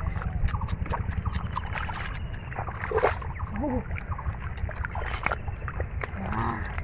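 Hands splashing and squelching in shallow muddy water while groping for catfish, in many short irregular splashes over a steady low rumble.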